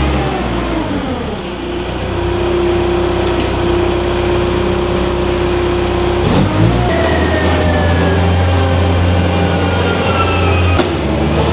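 Weidemann compact wheel loader's diesel engine running, its pitch dropping about a second in and changing again around six seconds as the machine moves off. A high whine falls slowly in pitch over the later part, and there is a sharp click near the end.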